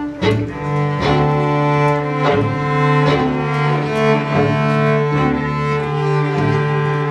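String quartet of violin, viola, cello and double bass playing a piece live: sustained bowed notes with a low note held underneath and repeated accented attacks.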